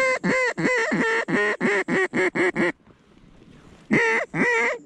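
Mallard hen duck call blown by a hunter to work ducks in the air: a run of about a dozen loud quacks that quicken, then two more after a short pause.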